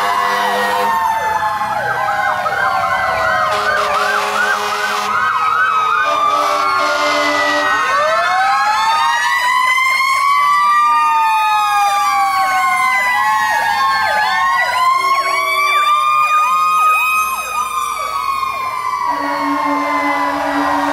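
Several fire truck sirens sounding at once as the engines pass, slow rising-and-falling wails overlapping fast yelps. Short steady horn blasts cut in a few times.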